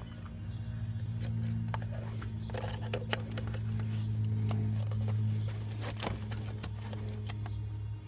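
Scattered light clicks and knocks from hands and tools reaching around the engine bay, over a steady low hum.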